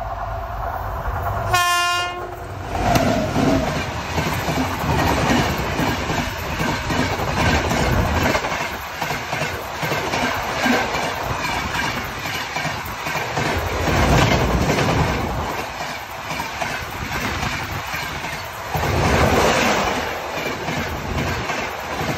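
A passenger train sounds its horn, ending in a short loud blast about two seconds in. Its coaches then pass close by with a heavy rumble and a steady clickety-clack of wheels over the rail joints, swelling now and then as the bogies go past.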